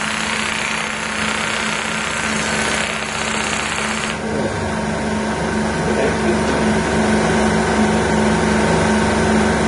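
ASMI power-assisted spinal mobilisation machine running, its handheld applicator buzzing rapidly against the patient's upper back. The high, hissy part of the sound cuts off about four seconds in, leaving a steady hum.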